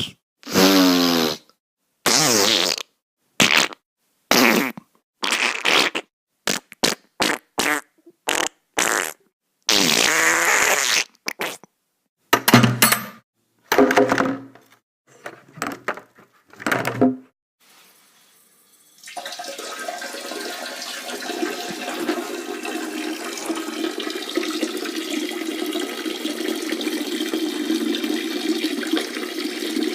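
Homemade fart sound effects: a string of many short separate bursts with brief silences between them. About two-thirds of the way in they give way to a steady stream of running water that carries on.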